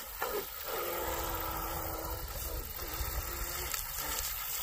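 Brushless electric motor of an RC outrigger boat whining steadily at part throttle as the boat runs in toward the bank. The whine dips about two and a half seconds in, comes back briefly and fades out near the end.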